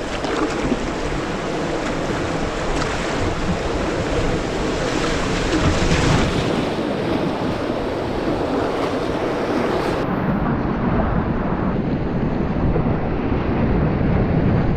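Whitewater rapids of a river in spring flood rushing steadily, with wind buffeting the microphone. The highest hiss drops away suddenly about ten seconds in.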